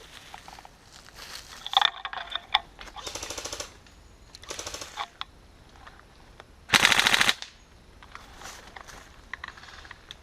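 Airsoft electric guns firing short full-auto bursts, a rapid even rattle of shots. Three fainter bursts come in the first five seconds, and one much louder, closer burst comes about seven seconds in.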